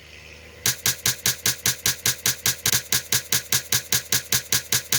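Daisy Red Ryder lever-action BB gun firing a rapid string of shots, about five sharp pops a second, starting a little over half a second in and keeping an even rhythm: the gun unloading BBs stacked up by cocking it over and over.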